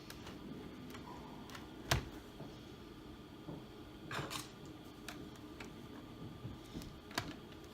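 Scattered small clicks, taps and a short scrape of a screwdriver working a screw out of the plastic underside of a Dell Inspiron 3576 laptop. The loudest is a sharp click about two seconds in.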